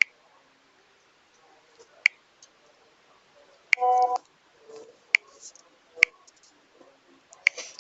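Sparse single clicks of a smartphone being tapped, with one short electronic tone about four seconds in.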